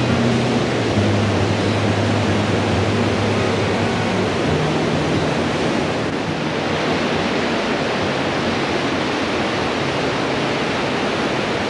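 Whitewater mountain stream rushing over rocks close by: a steady, unbroken rush of water.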